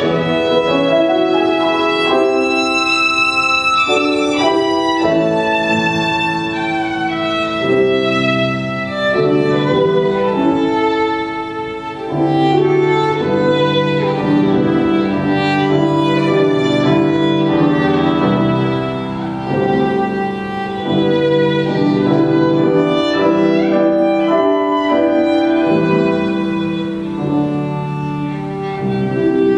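Solo violin playing a sustained classical melody, bowed, with grand piano accompaniment underneath.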